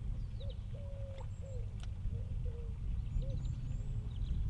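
Outdoor birdsong: a run of low cooing notes repeating every fraction of a second, with a few faint high chirps, over a steady low rumble.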